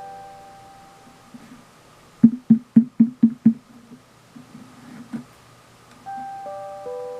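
TOA four-tone electronic chime: the last note of a rising four-note chime dies away, then six sharp knocks come in quick succession about two seconds in, about four a second, followed by a few softer knocks. About six seconds in a falling four-note chime begins, and its first three notes sound one after another.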